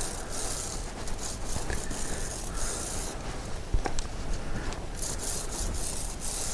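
Royal Enfield Himalayan 411's drive chain being scrubbed clean of paraffin residue along its top run: three long scratchy, rasping strokes with short pauses between them. There is a single sharp click a little under four seconds in.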